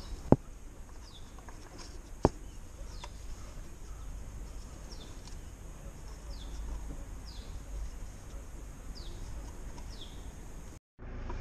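Small birds chirping in the background, short descending chirps about once a second, over a steady low hum. Two sharp clicks near the start come from parts being handled under the car. The audio cuts out briefly near the end.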